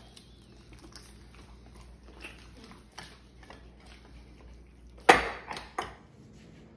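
Hands kneading wet harina pan cornmeal dough in a glass bowl: soft, irregular squishing and pressing. A sharp knock comes about five seconds in, with a smaller one just after.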